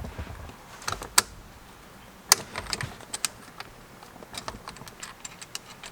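Irregular small sharp clicks and taps of hand tools and hardware as a suede steering wheel is bolted onto a quick-release hub with Allen bolts.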